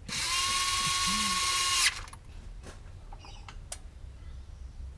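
A power tool runs with a steady high whine for about two seconds and then stops abruptly, followed by a few light clicks.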